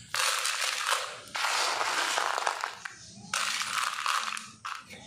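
Handfuls of small pebbles poured by hand into a plastic flower pot onto broken clay-pot pieces, rattling and clattering. Three pours of about a second each, and a short one near the end.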